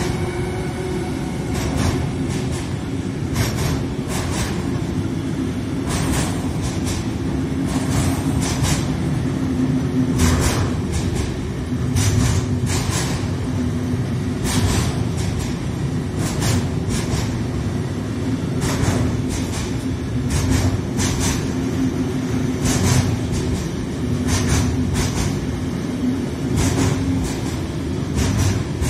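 Intermodal freight train of wagons carrying lorry trailers rolling past at speed: a continuous rumble with a steady hum and sharp wheel clicks at irregular intervals. The whine of the passing electric locomotives fades out about a second and a half in.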